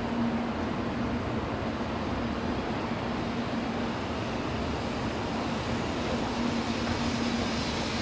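Steady din of a busy Shinkansen station concourse: an even rush of crowd bustle and building noise, with a faint low hum that comes and goes.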